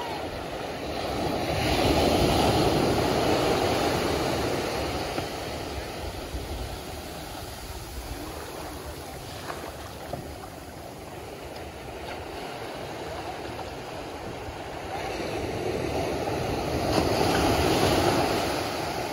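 Gentle surf breaking and washing up a sandy beach, swelling louder about two seconds in and again near the end, with a steady wash of water in between.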